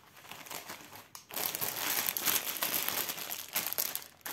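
Clear plastic bags of diamond-painting drills being handled and crumpled. The crinkling is faint at first, then loud and dense from just over a second in until just before the end.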